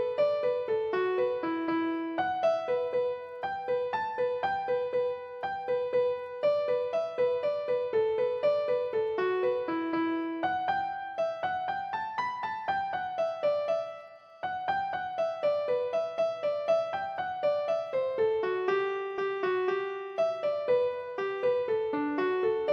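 Background piano music: a steady stream of single notes in a gentle melody, with a brief pause about two-thirds of the way through.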